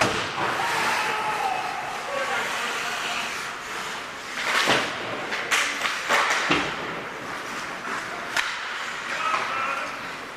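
Ice hockey play around the net: skates scraping on the ice, several sharp knocks of sticks and puck (loudest near the middle), and players shouting.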